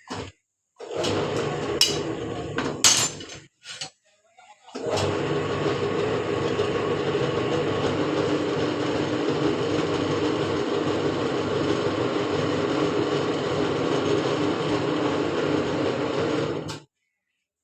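A machine running with a steady noisy hum. It starts and stops several times in the first few seconds, with a few sharp metallic knocks among the stops, then runs steadily for about twelve seconds before cutting off.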